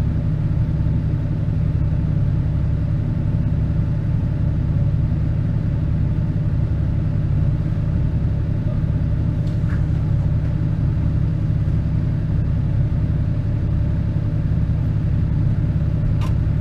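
Ford 7840 tractor's diesel engine idling steadily, heard from inside the cab.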